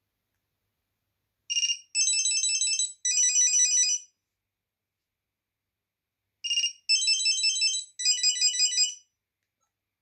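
Built-in ringtone of an Alcatel VM800 mobile phone playing through its small speaker: a high-pitched electronic pattern of a short chirp followed by two rapid trills of beeping notes, played twice about five seconds apart.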